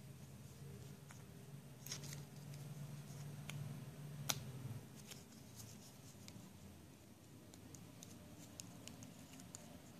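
Faint handling sounds of small plastic toy parts and a paper card being fitted together: light rustling and scattered small clicks, the sharpest about four seconds in, over a low hum that fades about five seconds in.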